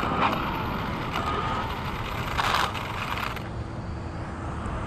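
Steady roadside traffic noise with two brief hisses, one right at the start and one about two and a half seconds in, growing a little louder near the end as a car approaches.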